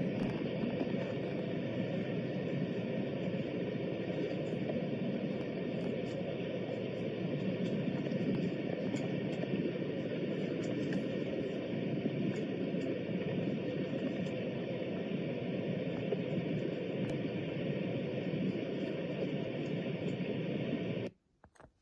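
Steady, even rushing noise with faint scattered ticks, cutting off abruptly near the end.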